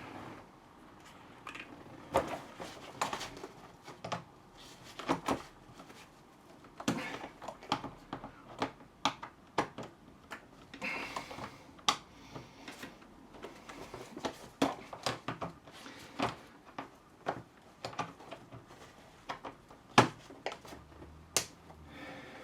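Irregular clicks and knocks of hand tools and hard plastic parts being handled while a suitcase's telescopic handle is unscrewed and taken apart, with one sharper knock a couple of seconds before the end.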